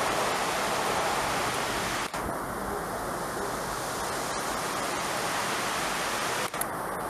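Steady rush of heavy monsoon rain, with the spray-laden wake of a train that has just passed at speed. The sound drops out briefly twice.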